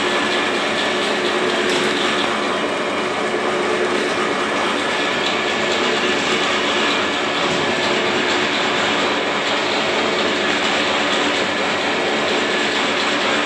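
Laundry soap mixer running steadily: a belt-driven gearbox turns a vertical agitator shaft through the liquid soap, making a constant mechanical running noise with a few steady tones in it.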